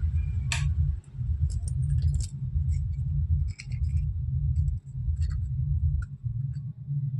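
Bangles on the wrists clinking and jingling in scattered light clicks as the hands move, over a loud, uneven low rumble.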